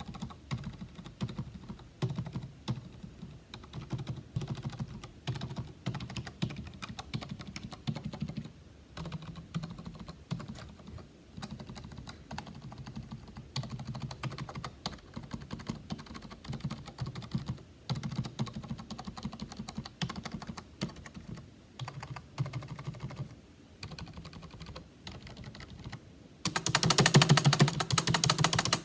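Typing on a flat-key computer keyboard: irregular clicking key presses with a low thudding under them, a spacebar that the typist calls bad-sounding among them. In the last two seconds the keys are hammered fast and much louder.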